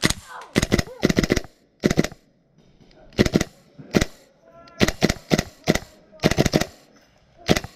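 Airsoft gun firing in short bursts of two to four rapid shots, about ten bursts with irregular pauses between them.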